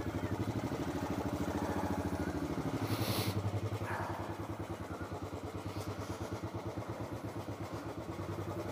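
Motorcycle engine running at low revs with an even, rapid pulsing beat as the bike is ridden slowly. About three seconds in the engine eases off a little, and there is a short hiss.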